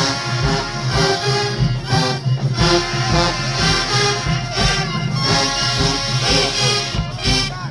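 HBCU-style marching band playing loudly: a massed brass section sounds sustained chords over a steady beat from the drum line.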